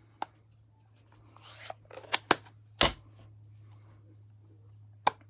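Card-making supplies being handled on a craft desk, including a plastic ink pad case: a short rustle, then a quick run of sharp plastic clicks and taps, the loudest about three seconds in, and one more click near the end.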